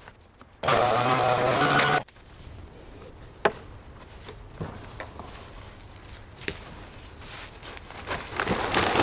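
Echo ES-250 shred 'n vac's two-stroke engine running steadily, then cutting off abruptly about two seconds in. After that come quieter rustling of dry leaves and scattered knocks on a plastic garbage can as the leaves are handled, growing louder near the end.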